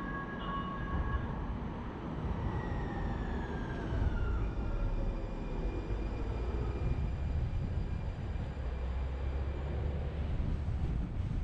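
Low, steady road rumble of a car driving. A horn's two steady tones stop about a second and a half in, and a falling whine passes around three to four seconds in.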